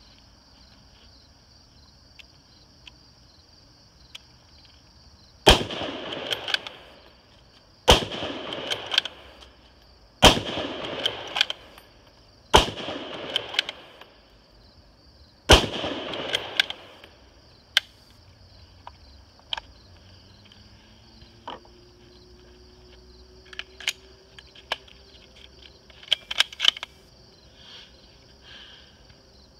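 Ruger Gunsite Scout bolt-action rifle in .308 firing five shots, about two and a half seconds apart, with the bolt worked between them. Crickets chirp steadily underneath, and several metallic clicks and rattles come near the end.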